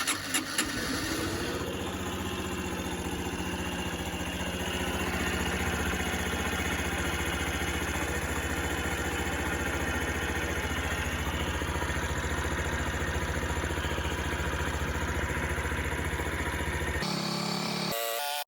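Honda Super Cub 50 (AA04) single-cylinder four-stroke engine running steadily at idle, with a few sharper bursts in the first second.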